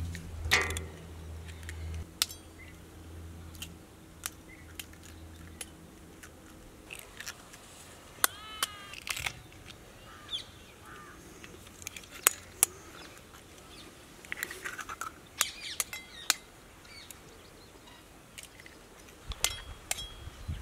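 Eggs cracked open one after another with a kitchen knife: sharp, irregular taps of the steel blade on eggshell. Birds chirp in the background, with a short run of calls about eight seconds in.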